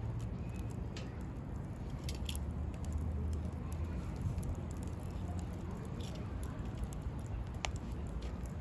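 Wood campfire crackling: scattered sharp pops and snaps from burning firewood, one a little louder about three-quarters of the way through, over a low steady rumble.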